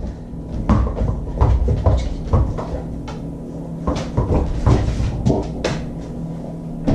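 An irregular series of about ten knocks and clunks of a cupboard or door being handled in a kitchen, over a steady low hum.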